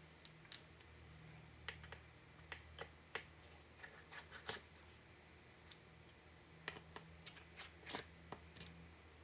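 Faint, scattered small clicks and taps of tools and small parts being handled during laptop disassembly, at irregular spacing over a low steady hum.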